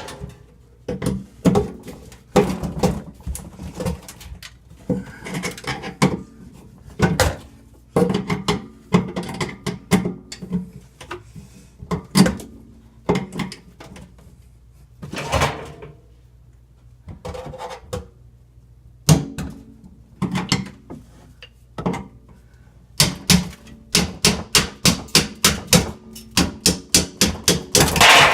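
Hammer striking a screwdriver against the rusted-on ring of a kitchen sink strainer, metal clanking on metal in irregular knocks, then a quick run of strikes, about three or four a second, near the end as the seized strainer is worked loose.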